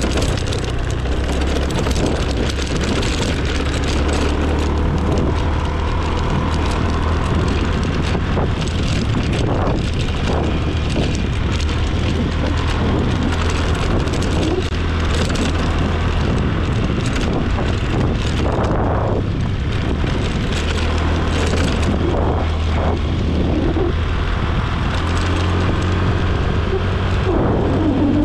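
Motor scooter running steadily while being ridden: a constant low engine drone mixed with wind rushing over the microphone.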